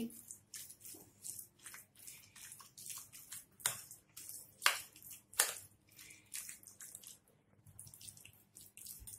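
A spoon stirring thick yogurt with grated cucumber and chopped onion in a glass bowl: irregular soft wet squelches and clicks of the spoon against the glass, a few sharper taps in the middle.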